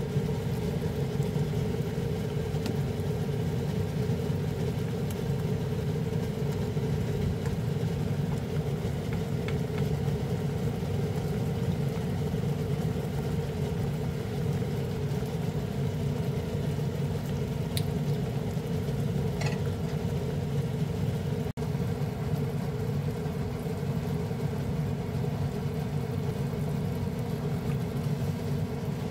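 A steady low mechanical hum and whir from a small motor, unchanging throughout.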